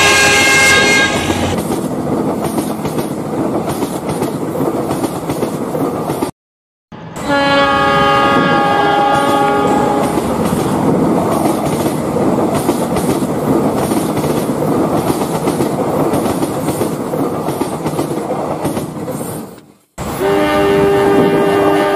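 Train horn sounding over the rumble and clickety-clack of a passing train, in spliced clips. The horn blows at the start, again for a few seconds about a third of the way in, and once more near the end, with two brief cuts to silence between clips.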